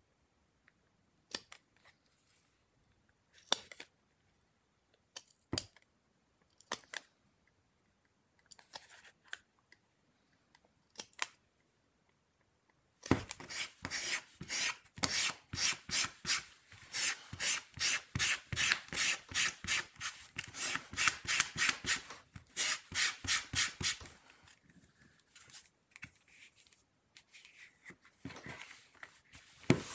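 Hand rubbing briskly back and forth over a leather piece on a wooden bench, about three strokes a second for some ten seconds, starting a little before halfway. Before that, scattered sharp clicks from a hand-held metal leather tool.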